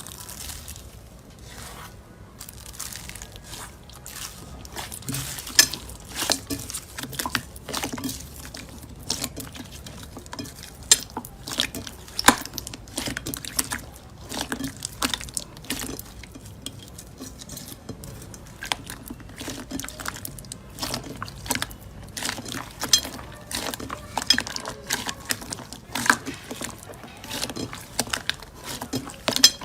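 Slime being squished and pressed by hand, giving many irregular wet clicks and pops.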